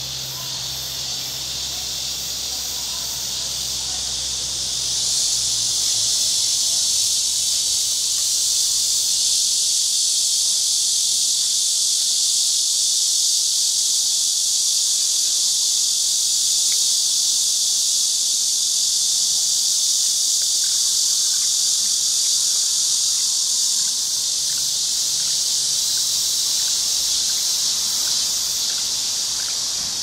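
Cicada singing: a loud, steady high buzz that swells about five seconds in and eases slightly near the end.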